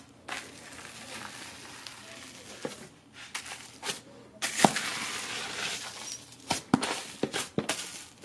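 Hands pressing and patting foamy slime full of tiny air bubbles, which give a crackling, fizzing hiss as they pop. The hiss comes in waves, and a run of sharper pops and clicks comes near the end.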